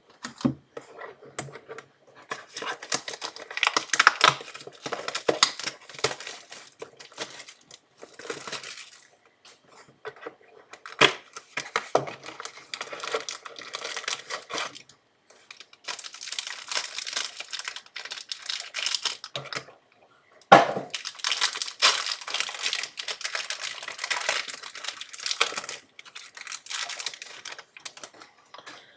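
Plastic wrapping on a trading card box and packs crinkling and tearing as they are opened by hand, in several long stretches with a few sharp knocks between.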